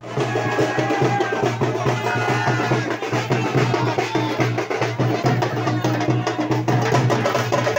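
Drums beaten fast and without a break, loud and dense, over a steady low hum.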